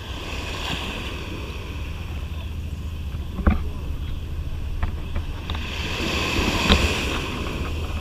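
Small waves washing over shallow water at a sandy shoreline, growing louder about three quarters of the way through, over a steady wind rumble on the microphone. Two sharp knocks stand out, one near the middle and one about two thirds in.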